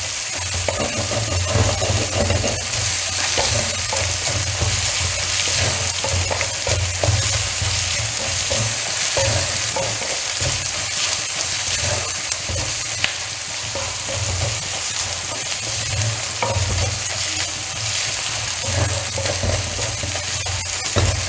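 Ginger and garlic frying in coconut oil in a kadai: a steady sizzle, with the spoon clicking and scraping against the pan now and then as the mixture is stirred to wilt it.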